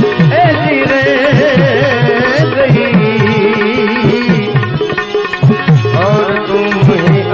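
Instrumental bhajan music: tabla playing, its bass drum's strokes sliding in pitch, under a wavering melody line.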